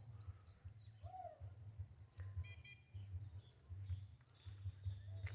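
Birds singing faintly: a quick run of high chirps at the start, then a few scattered short calls, over a low steady rumble.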